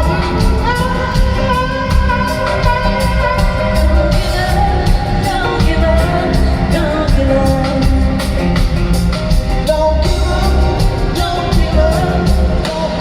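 Live rock band playing loudly with a sung vocal line of long, held notes over a steady drum beat.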